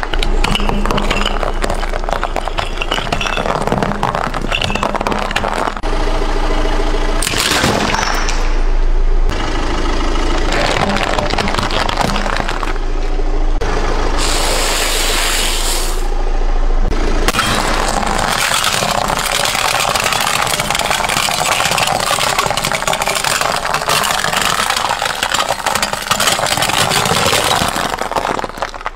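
Car tyres rolling over and crushing a series of objects, among them crunchy wafer-like discs and drink cans: a run of crunching and crackling with the car's engine running, changing abruptly from one crush to the next.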